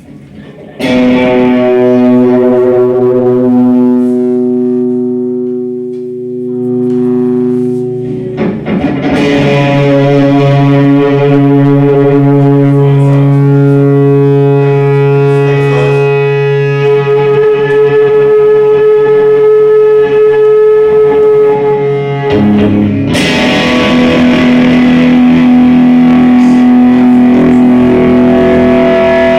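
Electric guitar played through vacuum-tube effects, with a distorted tone, holding three long sustained chords; the chord changes about eight seconds in and again near twenty-two seconds.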